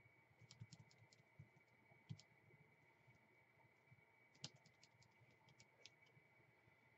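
Near silence with scattered faint clicks and taps from a foam wedge sponge dabbing acrylic paint through a plastic stencil and pouncing on a plastic paint palette. A faint steady high-pitched tone sits underneath.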